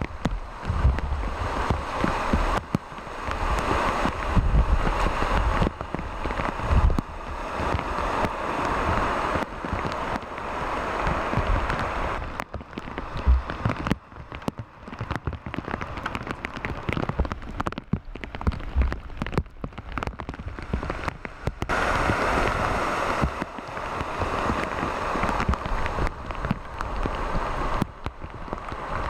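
Steady rain falling and splashing on the wet road, with irregular low rumbles mixed in.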